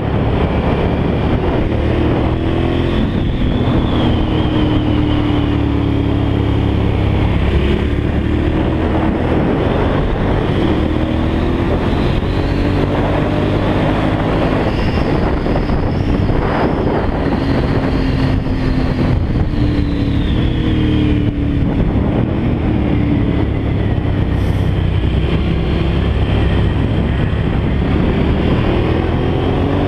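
Motorcycle engine under way at speed, its pitch rising and falling with throttle and gear changes through the curves, over a steady rush of wind on the on-board microphone.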